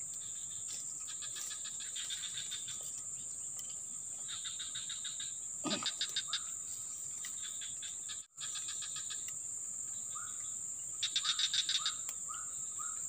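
Swamp insects: a steady high-pitched drone, with runs of rapid chirping trills every few seconds and a few short chirps lower down. The sound cuts out for a moment a little after eight seconds.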